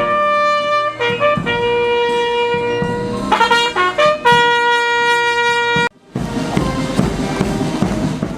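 Brass fanfare: long held notes, a quick run of notes about three and a half seconds in, and a final long note that stops abruptly about six seconds in. After a short gap, a dense noisy sound takes over and fades out at the end.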